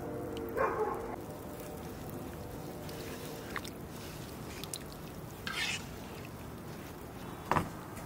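Sour curd (kashk) poured into a pot of herb and noodle soup, then a wooden spoon stirring the thick soup, with a few soft scrapes and clicks.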